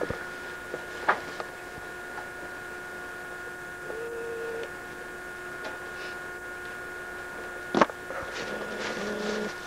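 Steady electrical hum of several pitches, with a sharp knock about a second in and a louder knock near eight seconds.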